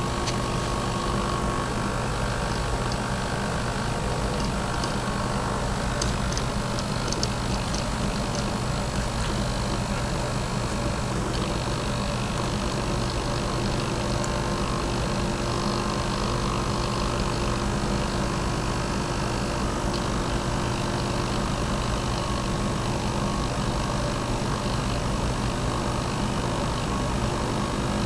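Hobby servo motors of a small robot arm humming and whining steadily as the arm works a paintbrush, their tones dropping out and coming back as the joints move.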